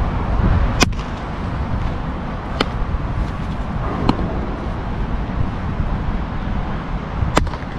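Four sharp pops of a baseball smacking into a leather glove during a throwing drill, over a steady low outdoor rumble.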